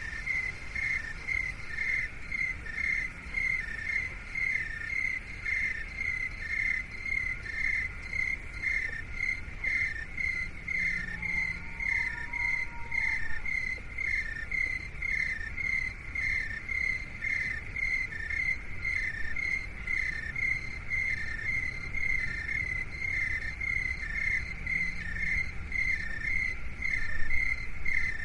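Cricket chirping in an even, unbroken rhythm of about two chirps a second, over a low background rumble. Around the middle a faint whistle-like tone rises and falls once.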